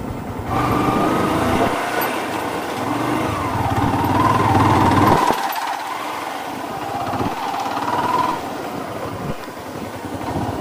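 Motorcycle engine heard from on the bike while riding, its pitch rising and falling with the throttle, then easing off about halfway through to a lower, quieter run as the bike slows.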